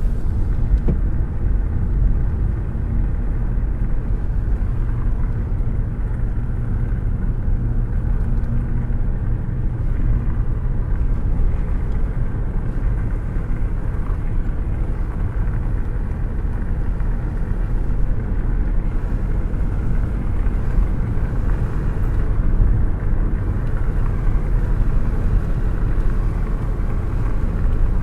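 Rushing air buffeting a hand held out of the open window of a moving car: a steady, low rumble of wind and road noise.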